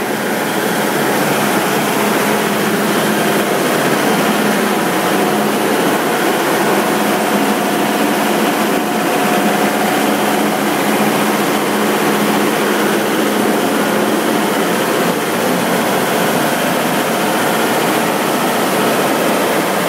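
60 kW diesel generator set running steadily at close range: an even, loud engine drone with a faint steady hum over it.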